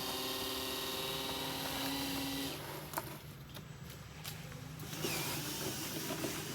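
Small electric motor of a radio-controlled construction model whining steadily, stopping about two and a half seconds in. A sharp click follows, and a lower, steady hum comes in near the end.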